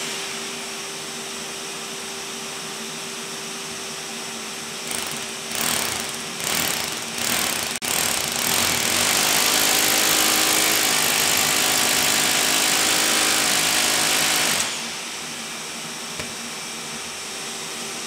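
A shop vacuum runs steadily while an SDS Plus hammer drill with a half-inch carbide concrete bit bores into the concrete floor slab. About five seconds in, the drill starts the hole in a few short bursts, then drills without stopping for about six seconds and stops suddenly. The vacuum keeps running after the drill stops.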